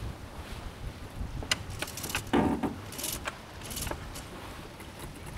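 Catalina 37 racing sailboat under way: a steady rush of wind and water along the hull. Scattered clicks and knocks come from the deck gear, the loudest a little over two seconds in.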